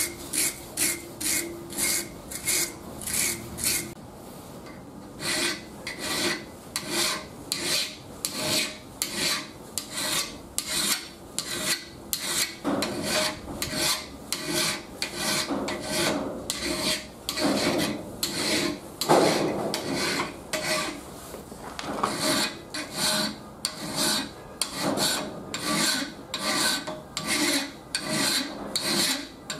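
Hand tools scraping a rusty steel screwdriver shaft held in a vise, in steady back-and-forth strokes of about two a second. It is a wire brush at first, then a flat metal file, with a brief pause about four seconds in.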